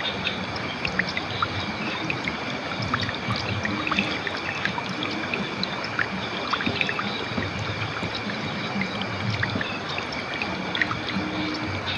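River water flowing steadily over stones, a continuous rush with many small trickles and splashes.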